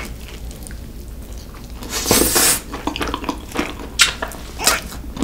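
Close-miked eating sounds of Chicago-style pizza with its crisp crust: bites and wet chewing. The loudest moment is a bite about two seconds in, followed by a few sharp clicks.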